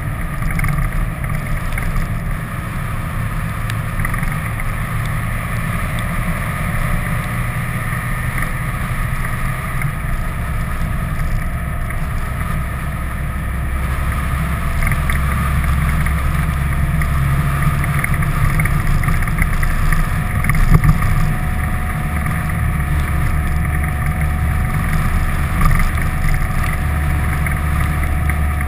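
A vehicle's engine running and wind rushing over a camera mounted outside the vehicle while driving. The low drone grows louder about halfway through.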